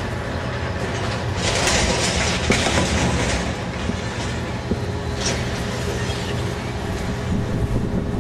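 Steady low outdoor rumble, with a louder rushing swell from about one to three seconds in.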